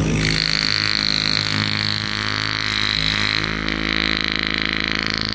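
Hurricane hydronic heater's diaphragm air pump running with a steady buzzing drone and a high airy hiss. It is loading up and building pressure now that a vacuum check valve is fitted on its intake, standing in for its blown internal check valves.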